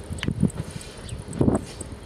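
Wind buffeting the microphone in irregular low thumps, the strongest about a second and a half in, over a faint fast high ticking.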